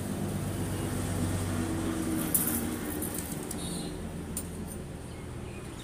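A steady low hum, with a few light metallic clicks and scrapes as a steel bar is shifted in a steel jig, the sharpest click about two seconds in.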